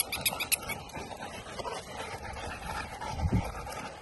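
Rottweilers panting as they walk on leash. A run of quick light clicks stops about a second in, and there is a short low thump a little over three seconds in.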